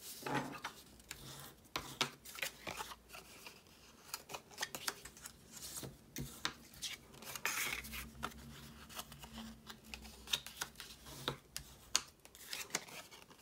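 Cardstock being folded along its score lines and rubbed down with a bone folder: a scattered run of short scrapes, paper rustles and light clicks.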